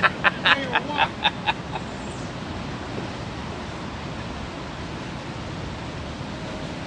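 Steady rush of flowing stream water. It opens with a quick run of about seven short, sharp sounds, about four a second, in the first second and a half.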